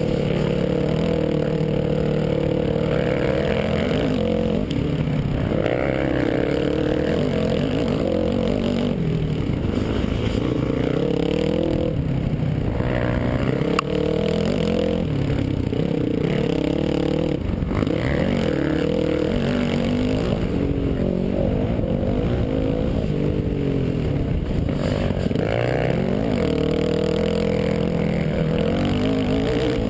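Off-road dirt bike engine running hard, its pitch rising and falling again and again as the rider throttles up, shifts and backs off along the trail, heard from a helmet-mounted camera.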